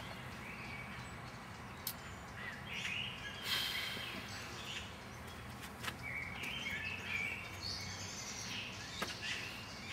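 Outdoor ambience of steady background noise with songbirds chirping and singing now and then. There are a few sharp clicks, about four.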